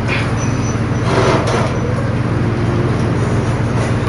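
A steady low mechanical hum, with a short burst of rattling noise about a second in.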